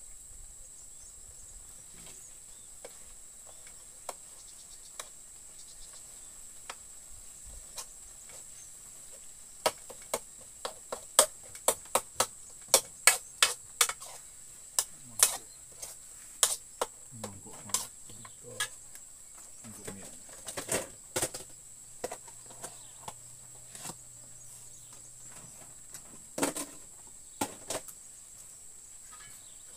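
Metal spoon knocking and scraping against a wok while stirring a frying chilli sambal, a run of sharp irregular clicks. They come thickest from about ten seconds in to about twenty-two seconds, and again briefly a few seconds before the end, over a faint steady high-pitched hiss.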